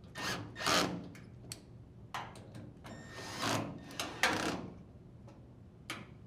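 Drill driver tightening screws into a dryer's door hinges, in several short bursts of about half a second each, with a few sharp clicks between.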